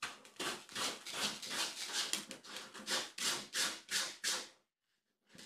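A kitten digging in cat litter in a litter box: a quick run of scratchy raking strokes, about three or four a second, that stops about four and a half seconds in, with one more stroke near the end.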